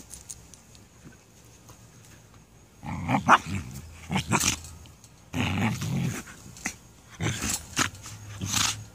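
Puppies play-growling at each other through a wire pen fence, in a string of short growly bursts that begin about three seconds in.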